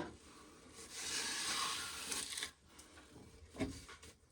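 Dried ear corn being shelled: a rasping rustle of kernels for about two seconds, then a single short knock near the end.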